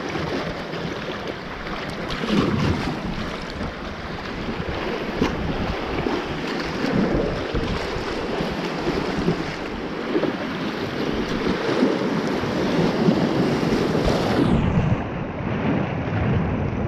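Rushing, churning river water of a class I–II rapid around an inflatable kayak, mixed with wind noise on the action-camera microphone.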